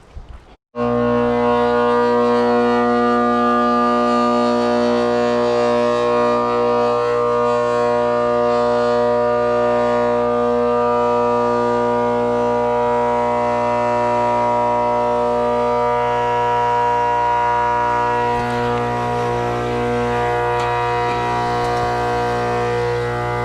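Trane condenser fan motor, a quarter-horsepower 825 RPM motor, running on shot bearings: a loud, steady howl of several tones together that starts suddenly just under a second in. The bearing noise is the sign that the motor is worn out and needs changing.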